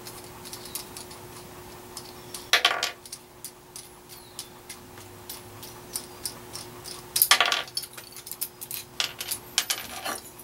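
Small metal bracket parts and bolts clinking and clicking against the steel vise on a drill press's XY table as they are fitted, with two louder metallic clatters, about two and a half seconds and seven seconds in. A faint steady hum underneath.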